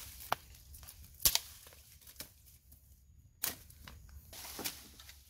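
Leafy branches being broken off and pulled through undergrowth: leaves rustling and crackling, with several sharp snaps of breaking wood, the loudest about a second in.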